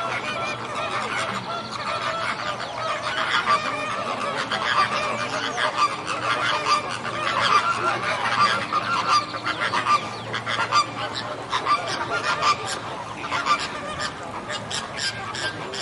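A flock of birds honking, many goose-like calls overlapping one another.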